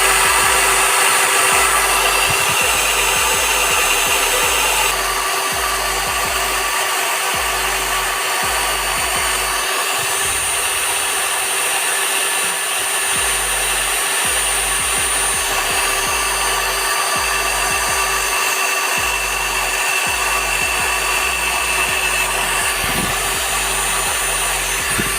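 Electric drill running steadily with a high whine, driving a home-made cutter disc made from a bottle cap.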